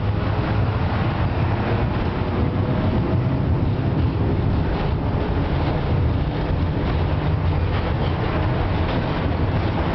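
FVV CSM-4 articulated tram running along the track, heard from inside the passenger saloon: a steady, loud rumble of wheels on rails and running gear with a low hum.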